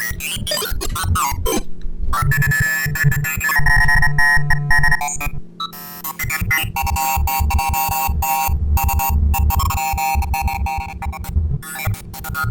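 Glitchy electronic music from a granular live-sampling patch: pitched synth-like fragments and low thuds chopped into rapid stuttering pieces, with pitch randomization on. A brief drop-out comes about five and a half seconds in.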